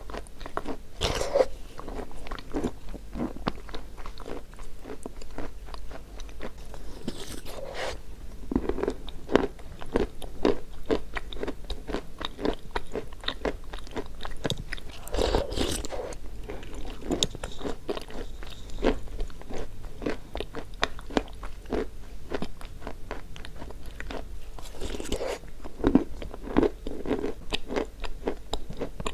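Close-up biting and chewing of chalk: dense, rapid crunching and crackling, with a louder bite every several seconds.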